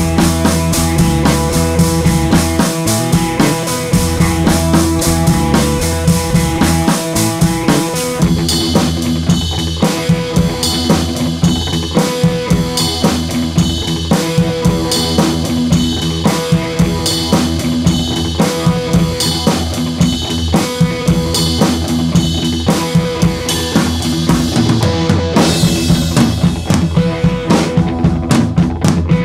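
Background music: a track with a drum kit keeping a steady beat over sustained instrumental notes, the arrangement changing about eight seconds in.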